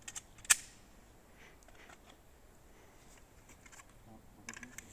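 A few sharp clicks: one loud one about half a second in, and a quick run of small clicks near the end.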